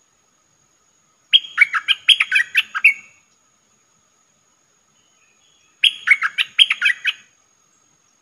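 Caged decoy bulbul singing two short phrases of quick, jumping whistled notes: one about a second in, the other about six seconds in.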